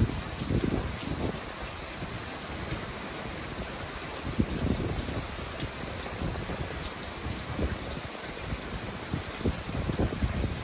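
Rain falling steadily, with individual drops ticking close by and a few brief low rumbles.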